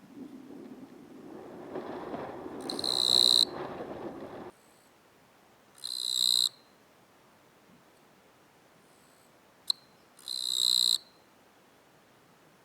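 Male eastern Japanese katydid (Gampsocleis mikado) singing its courtship song, made by rubbing the toothed file on its forewings: three loud, buzzy, high-pitched chirps, each under a second long and several seconds apart, the last one preceded by a single sharp click. A low background noise runs under the first chirp and cuts off about four seconds in.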